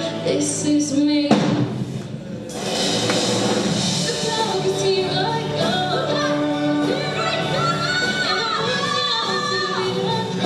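Live band music with singing. About a second in, the music breaks off suddenly into a brief, quieter noisy stretch, then picks up again with sung melody lines.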